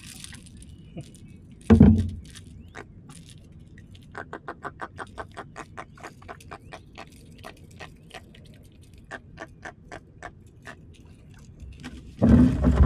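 A small jack held out of the water croaking: a quick run of clicks, about six a second, that slows and thins out over several seconds. Two heavy thumps, one about two seconds in and one near the end.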